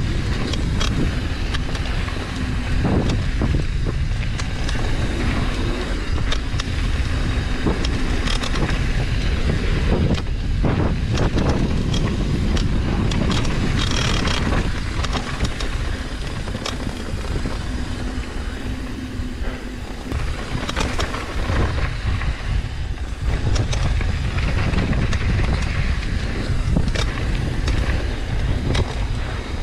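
Wind rumbling on the microphone as a Trek Session downhill mountain bike rolls fast down a dirt and gravel trail, its knobby tyres hissing on the loose surface. Sharp clatters of the bike over rocks and bumps come now and then, several close together about ten to fourteen seconds in.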